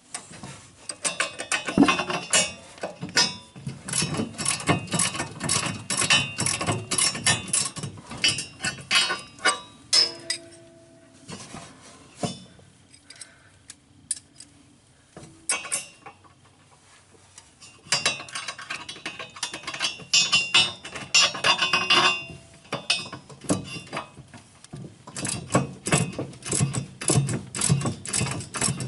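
Wrench tightening the new shear bolts on a snowblower's auger shaft: quick runs of metallic clicking and clinking, a quieter pause about ten seconds in, then more clicking from about eighteen seconds in.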